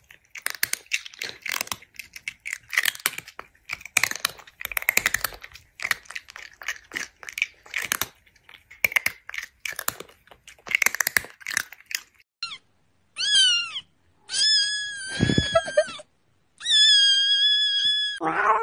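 Crunchy chewing and munching, a rapid irregular crackle for about twelve seconds, then a cat meowing several times: a short meow that falls in pitch, then two long drawn-out meows near the end.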